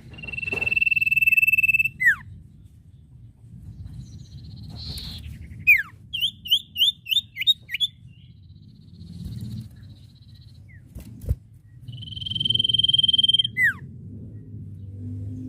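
Common iora song: a loud, long steady whistle that ends in a quick falling slur, then a run of about seven short rising notes, then another long whistle with a falling slur near the end.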